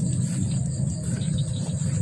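Steady night-time outdoor ambience: a constant low rumble under a continuous high-pitched insect trill, with a short rising call near the end.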